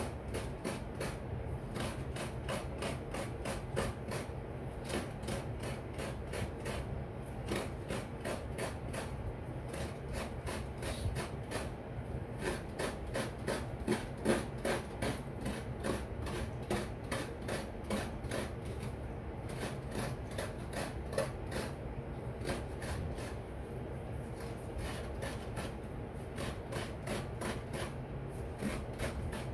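Fresh coconut meat being grated by hand on a coconut-grater stool (kudkuran): the half shell is scraped over the serrated metal blade in a steady rhythm of rasping strokes, several a second.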